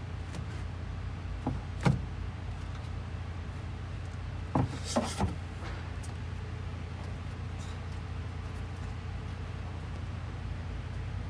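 A few short knocks and clicks over a steady low rumble: two about two seconds in and a quick cluster of three or four near five seconds.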